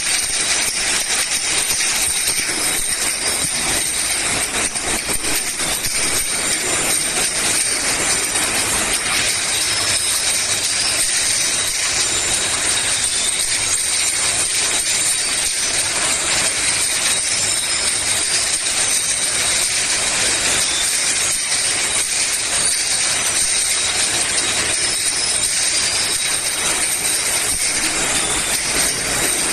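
Automatic glass-bottle piston filling and capping line running: a steady mechanical clatter with glass bottles clinking on the conveyor, over a steady high whine.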